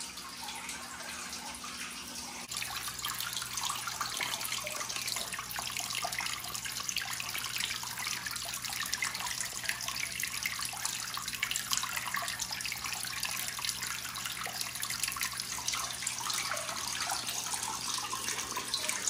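Filter pump outflow splashing and churning the water of a bathtub turtle pond: a steady trickling splash that steps louder about two and a half seconds in, with a faint low hum under it.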